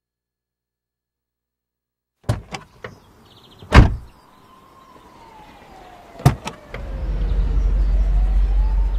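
After about two seconds of silence, a few clicks and then two car doors slamming shut, the first loud. A car engine then rumbles and grows louder, with a siren wailing faintly behind it, its pitch falling slowly and then rising again.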